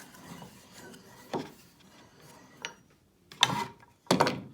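A shop-made wooden twin-screw Moxon vise being worked by hand: quiet handling and rubbing with a knock about a second in, then two loud wooden clunks near the end.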